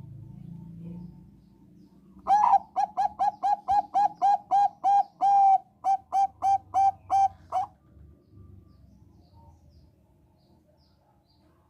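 Thai-bred zebra dove (perkutut bangkok) singing: a quick run of about twenty short, evenly spaced coos, roughly four to five a second. There is one slightly longer note, then a brief break about two-thirds of the way through.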